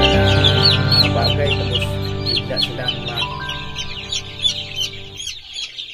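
A brooder full of chicks peeping nonstop, many quick high peeps overlapping. Background music with long held notes plays underneath and fades out near the end.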